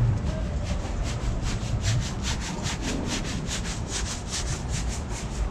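Rhythmic scraping, about five short rasping strokes a second, starting about a second in and dying away near the end, over a low steady background rumble.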